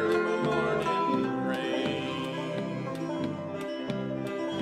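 Acoustic guitar strumming in a steady rhythm under held notes, with the last sung line of a country-folk song trailing off in the first second.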